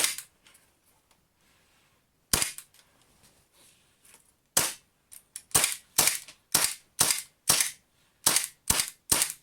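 WE gas-blowback airsoft Colt 1911 in a carbine kit firing BBs semi-automatically, each shot a sharp crack with the slide cycling. Three shots come about two seconds apart, then the firing quickens to roughly two shots a second for the rest.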